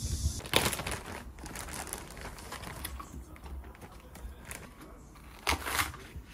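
Plastic bag crinkling and rustling as green onions are handled on a wooden cutting board. Near the end comes a louder stroke as a kitchen knife starts slicing the green onions.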